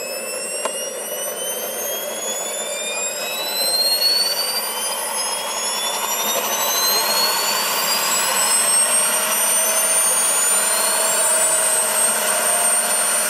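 JetsMunt 166 model jet turbines of a large RC airliner starting up: a high whine rises steadily in pitch and grows louder as they spool up, settling into a steady high tone in the last few seconds.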